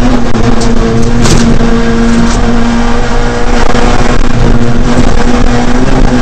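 Ford Fiesta R2 rally car's 1.6-litre four-cylinder engine running hard at high revs, heard from inside the cabin. It holds a fairly steady pitch, eases off briefly a little past halfway and picks up again, with a short hiss about a second in.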